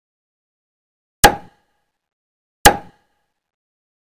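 Two short click sound effects about a second and a half apart, each a sharp tap with a brief ringing tail, over otherwise dead silence: the button presses of a like-and-subscribe animation.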